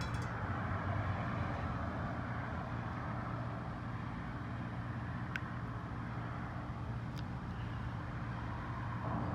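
Steady low mechanical hum, like a running engine nearby, with two faint clicks of small parts being handled about five and seven seconds in.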